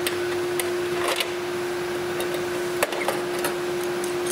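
Clecos being fitted with cleco pliers into the pre-drilled holes of an aluminium flaperon assembly: a few scattered, sharp metal clicks over a steady background hum.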